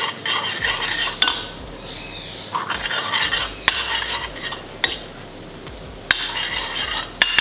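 A metal ladle stirs and scrapes thick, sizzling pav bhaji in a pan on a gas stove. The ladle knocks sharply against the pan about five times.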